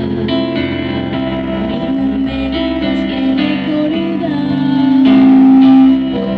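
Adult choir singing a Christmas carol with instrumental accompaniment; a held note swells to its loudest near the end and then drops back.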